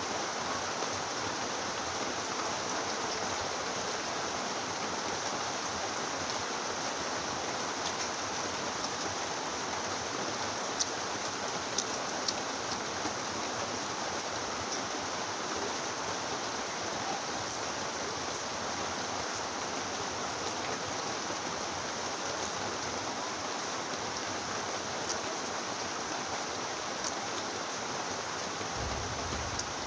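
Steady heavy rain, an even hiss, with a few faint clicks near the middle.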